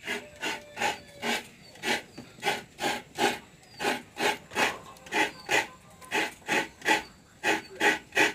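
Coconut meat being scraped on a hand grater, a regular rasping stroke about two to three times a second.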